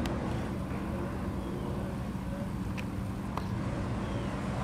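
2013 Scion FR-S flat-four engine running steadily through a GReddy SP dual-exit catback exhaust, Agency Power header and Invidia test pipe, with an even, low exhaust rumble and no revving.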